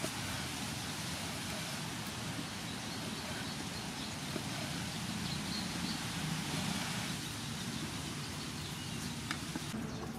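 Steady outdoor background noise, an even hiss with no clear pitch, with a few faint taps.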